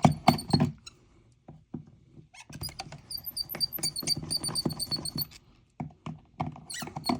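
Handling noises: a few knocks, then a run of rapid small clicks with a thin high ring for a few seconds, and one more knock near the end.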